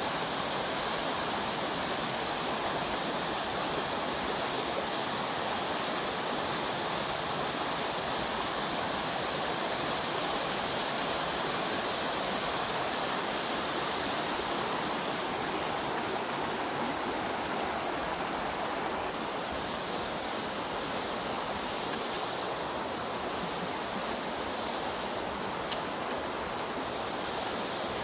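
Rushing water of a waterfall and the shallow creek below it, tumbling over rocks, as a steady, even roar.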